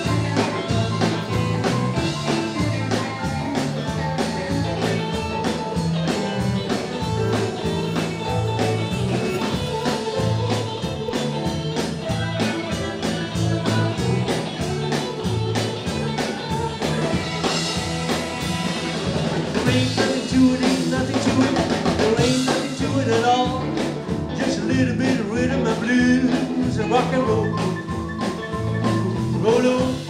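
Live rock-and-roll band playing: electric guitars, bass and drum kit on a steady beat, with singing.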